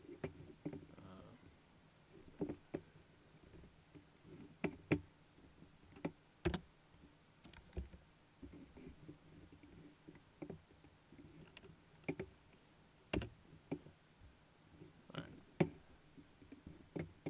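Irregular clicks of a computer mouse and keyboard, one every second or two, over a faint steady background hum.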